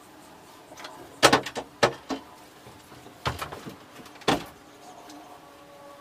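A run of sharp wooden knocks and clatters, about five in all, the loudest near the start, as the hinged wooden shutter over a bird hide's viewing slit is handled and opened.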